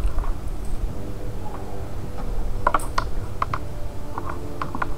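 Scattered small clicks and taps of hands handling an Apple Watch charging puck, its cable and a tissue on a tabletop, more of them in the second half, over a steady low rumble.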